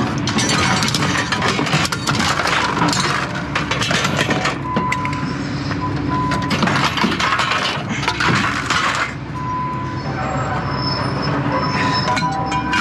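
Scrap metal being pulled out of a van's cargo floor and dropped on the ground, with repeated clanks and rattles of metal on metal. A steady engine hum runs underneath.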